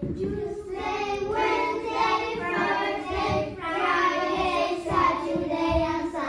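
A class of young children singing a song together, their voices overlapping in a steady sung melody.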